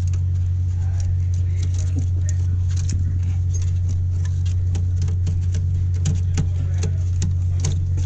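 Scattered plastic clicks and rattles of network cable plugs and connectors being handled and reseated in an electrical control cabinet, to cure a suspected lost contact. Underneath runs a loud, steady low machinery hum.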